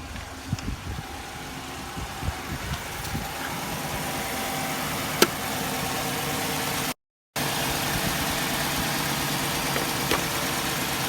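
2011 Chrysler 300C's 5.7 Hemi V8 idling steadily, with a few irregular knocks in the first seconds and one sharp click about five seconds in.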